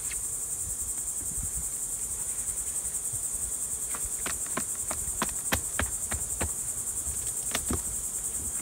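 Hive tool prying apart honey supers glued together with propolis: a run of about ten sharp cracks and knocks in the second half as the seal is broken. A steady, high-pitched insect chorus goes on underneath.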